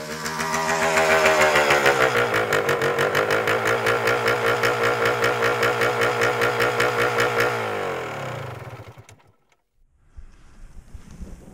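Dirt bike engine running: its pitch climbs over the first second or so, holds steady with a fast pulsing beat, then drops and dies away about eight to nine seconds in, as when the engine is shut off.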